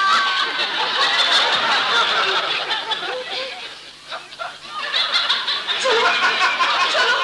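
Audience laughter, typical of a sitcom laugh track. It fades about four seconds in, then swells again.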